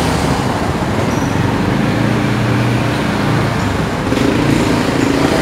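Street traffic with a motor vehicle's engine running, a low steady hum through the middle that gives way to a higher engine note near the end.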